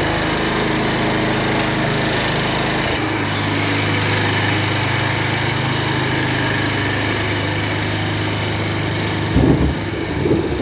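Briggs & Stratton engine of a Murray riding mower running steadily on its test run after being reassembled, running pretty good; its note shifts about three seconds in, and it gets briefly louder and rougher near the end.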